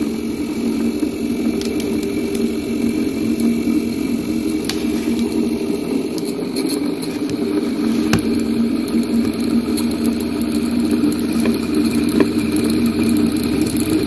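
Brushed fan motor of a homemade Bedini generator running with a steady hum-like whir, with a few faint clicks.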